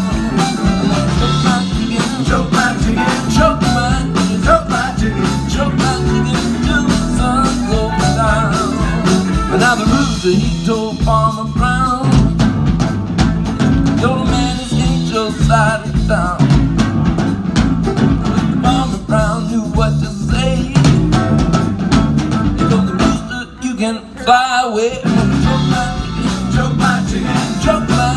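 A large band playing live: strummed acoustic guitar, horns, cello and drums, with a man singing. The band drops out briefly about 23 seconds in, then comes back in.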